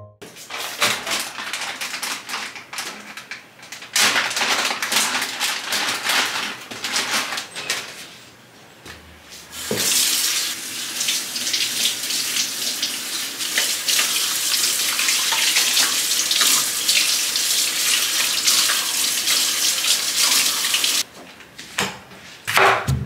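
Kitchen tap running into a sink as pak choy is rinsed under it. The flow eases off briefly about a third of the way in, then runs on and cuts off near the end.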